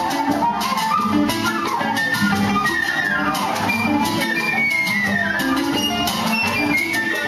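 Cuban son band playing: quick melodic runs slide down and back up over a steady percussion rhythm.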